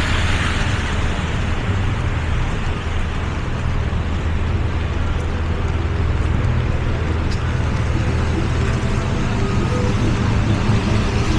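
Steady rumble of city street traffic mixed with the hiss of rain, with no single event standing out. Faint music begins to come in near the end.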